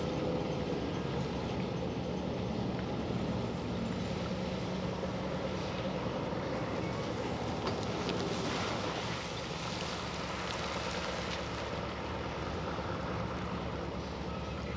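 Monighan 9W walking dragline at work: a steady machinery drone as the loaded 9-yard bucket swings, with a rattling rush of rock and dirt as the bucket dumps, about eight seconds in.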